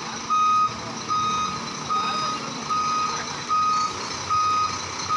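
Reversing alarm of a Sinotruk HOWO tractor truck beeping as the truck backs up: one short, high, steady beep about every 0.8 seconds.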